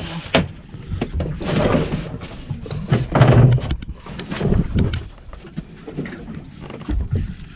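Noise aboard a small speedboat at sea: irregular rushes of wind and water, the loudest about three seconds in, with scattered knocks.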